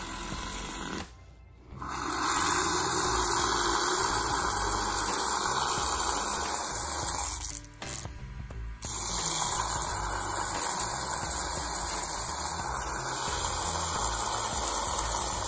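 Handheld milk frother whirring as its spinning whisk head froths milk in a bowl. It is a steady buzz that cuts out briefly twice, about a second in and near the middle.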